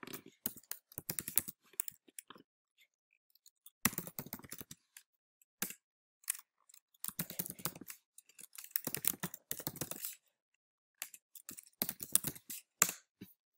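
Typing on a computer keyboard: quick runs of key clicks in short bursts with pauses between, as words are entered into a form.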